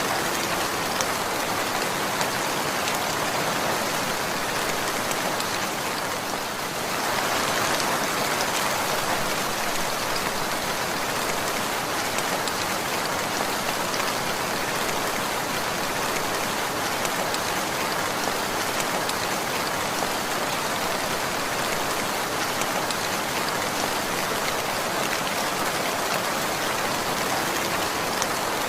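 Steady rain falling, a dense, even patter of raindrops on surfaces; it softens briefly about six seconds in, then picks up again.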